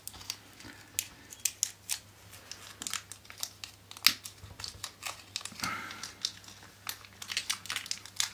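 Small clear plastic bag of tiny screws crinkling and crackling in the fingers, in short irregular crackles, as it is worked open to get a screw out.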